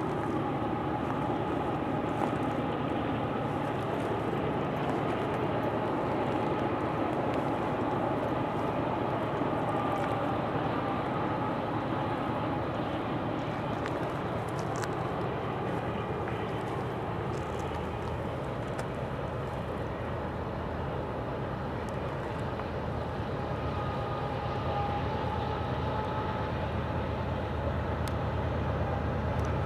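GE diesel freight locomotives approaching in the distance, a steady low rumble with a faint whine above it that holds level throughout.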